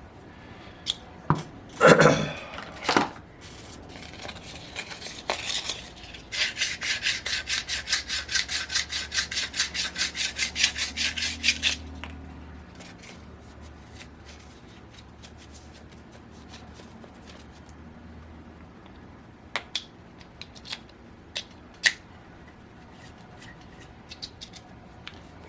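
Metal engine parts handled by hand: a couple of knocks, then a fast, even rasping rub at about seven strokes a second for some five seconds as the Raduga glow engine's crankshaft is worked in its tight, sticky ball bearings, followed by a few light metal clicks.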